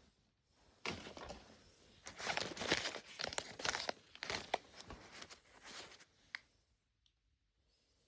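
Thin plastic packaging crinkling and tearing as a small wrapped toy piece is unwrapped by hand: a dense run of crackling with many sharp clicks for about five seconds, ending in a single sharp click.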